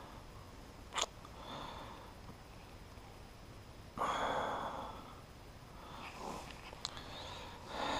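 Small plastic wiring connector and its pins handled in the fingers: a sharp click about a second in and a lighter tick near the end, with a short sniff about four seconds in.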